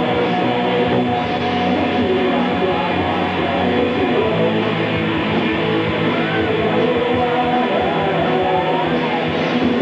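Rock band playing live, loud electric guitar over bass and drums, dense and steady without a break.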